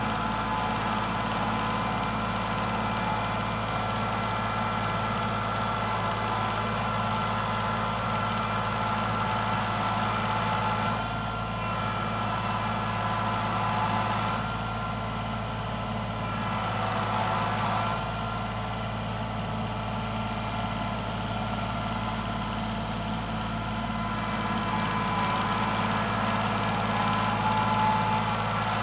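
Kubota L3901 compact tractor's three-cylinder diesel engine running steadily as the tractor climbs a snowy slope.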